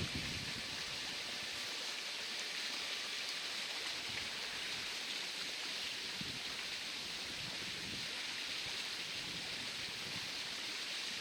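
Small mountain stream flowing, its water running over stones in a steady, even rush.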